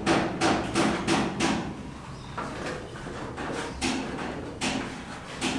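Hammer blows, a quick run of about two or three strikes a second at first, then a few scattered knocks.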